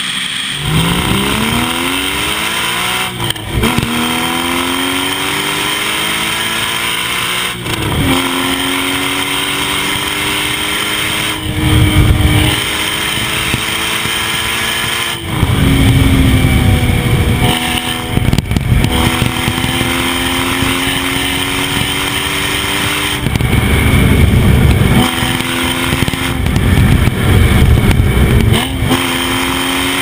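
Porsche Cayman GT4's naturally aspirated 3.8-litre flat-six under hard acceleration, the engine note climbing in pitch through each gear and dropping back at each of several upshifts. From about halfway it is heard from right beside the tailpipe, louder, with a heavy low rumble.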